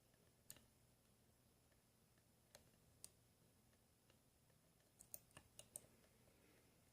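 Faint clicks of a lock pick and tension wrench working the pin stack of a Master Lock Pro Series padlock: a few scattered single clicks, then a quick run of about five near the end.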